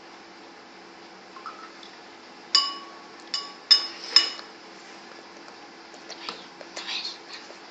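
Glassware clinking four times in quick succession, each clink ringing briefly, as oil is poured into a glass beaker. A few softer, scattered handling noises follow near the end.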